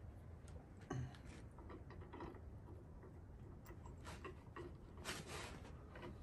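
Quiet handling sounds of lumber as a wooden brace is fitted against a sawbuck frame. There is a knock about a second in, scattered light taps, and a short scrape about five seconds in.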